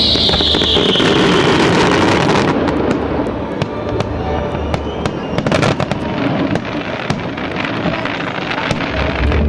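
Fireworks display: a whistle falling in pitch at the start, then a dense run of sharp pops and crackles from bursting aerial shells, with the show's music underneath.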